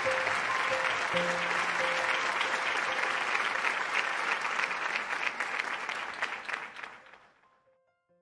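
Crowd applause over background music, the music's notes fading first and the whole mix fading out to silence about seven seconds in.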